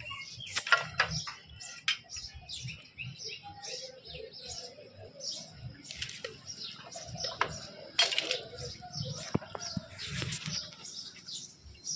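Small birds chirping over and over in short, high notes. Scattered sharp clicks and knocks come from hands working on a motorcycle engine's exposed clutch, the loudest about a second in and again around eight and ten seconds in.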